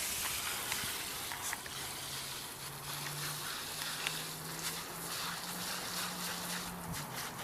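Garden hose spraying water, a steady hiss, with a low steady hum from about two seconds in until near the end.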